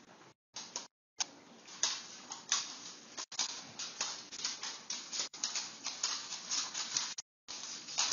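Dog's claws scrabbling and scraping on a hardwood floor as it braces and pulls in a tug-of-war, an uneven run of scratchy scrapes and clicks, about two a second. The sound is cut by a few brief, sudden gaps of silence.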